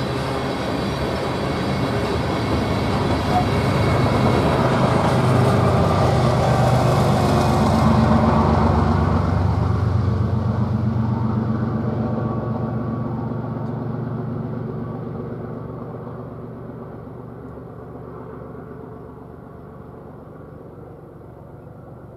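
Freight train of covered hopper cars passing on the near track: rolling wheel-and-rail noise, loudest about eight seconds in, then losing its high end and fading to a low rumble as the tail of the train recedes.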